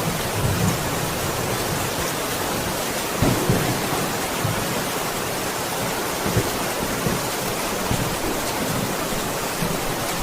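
Steady heavy rain, with low rolling thunder rumbling underneath and swelling briefly a few times.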